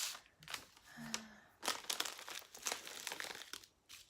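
Small plastic bags of diamond painting drills crinkling as they are handled, with a dense run of crackling in the second half.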